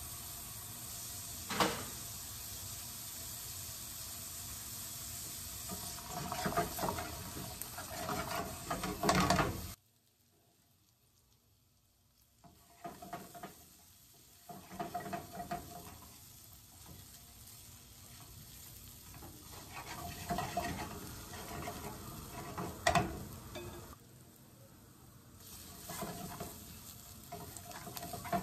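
Onions and carrot chunks sizzling in oil in a deep skillet, browning over raised heat, with a spatula stirring and scraping them and now and then knocking against the pan. The sound drops out completely for a few seconds about ten seconds in.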